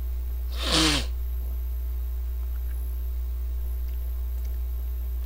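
A man gives one short, breathy vocal burst with a falling pitch, like a sneeze or a snorting laugh, about half a second in. A steady low hum runs underneath.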